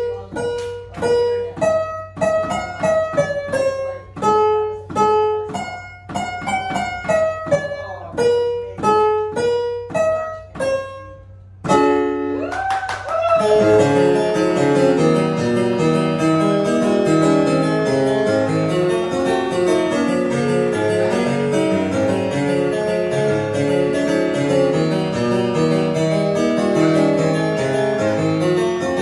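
A Christmas carol melody picked out one note at a time on an electronic keyboard as juggled balls drop onto its keys, each note plucked-sounding and separate with short gaps. About twelve seconds in, a dense keyboard part with many notes and chords at once takes over and runs on.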